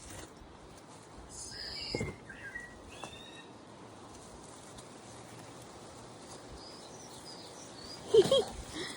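Small birds chirping a few short calls over a faint outdoor background, with a single dull knock about two seconds in.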